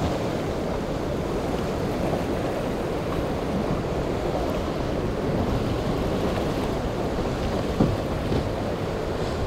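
Steady rush of choppy inlet water and surf, with wind on the microphone.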